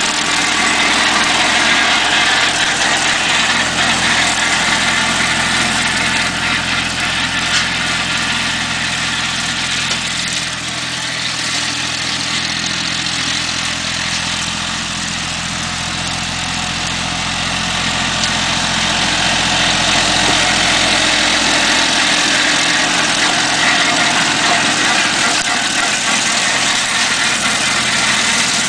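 Yanmar F16 compact diesel tractor running steadily while driving a 115 cm PTO rotary mower through grass, the engine note with a hiss from the cutting deck over it. The sound drops a little partway through as the tractor moves off across the field, then grows again as it comes back.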